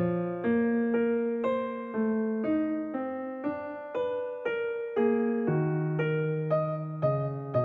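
Solo piano background music playing at an even pace, about two notes a second, each note fading before the next.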